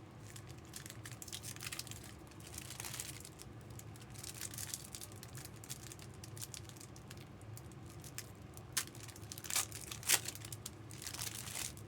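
Plastic wrapping on trading card packaging crinkling and tearing as it is handled and opened, a run of fine crackles with a few sharper snaps near the end.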